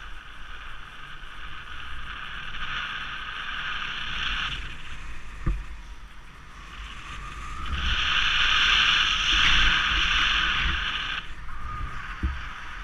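Wind rushing and buffeting on a head-mounted camera's microphone while a paraglider wing is pulled up for launch, getting much louder about eight seconds in as the wing comes overhead. A single short knock about halfway through.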